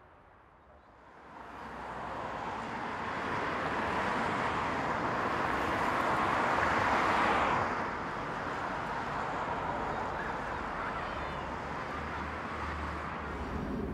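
Road traffic on a city street: cars going by, fading in about a second in, swelling as one passes closest around seven seconds, then settling into a steady hum of traffic.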